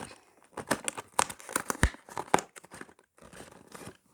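Cardboard and plastic packaging of a Lego set box being pulled and torn: a quick run of sharp crackles and short rips, easing off after about two and a half seconds.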